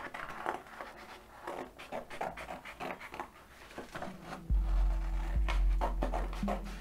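Sheet of paper rustling and crinkling in irregular bursts as a large painted paper cut-out is handled. About two-thirds of the way through, a low, steady music pad comes in and is the loudest sound.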